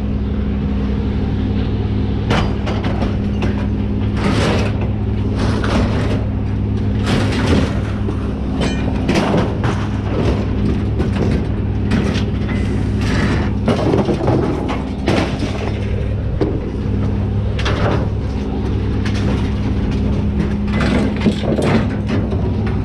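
A vehicle engine idling with a steady low hum, under repeated clanks, knocks and scrapes of scrap items being shifted and handled.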